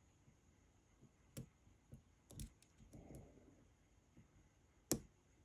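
Faint, scattered clicks of a lock pick working the pins of a pin-tumbler lock with spool pins, held in a false set, with a sharper click just before the end.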